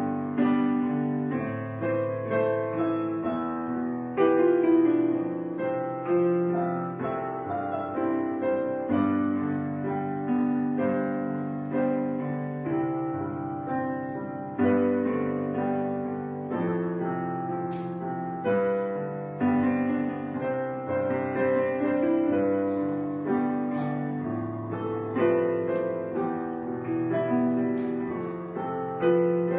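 Gentle solo piano background music, slow notes and chords each struck and left to fade.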